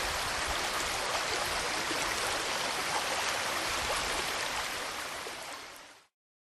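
River water flowing, a steady rush of moving water that fades out and stops about six seconds in.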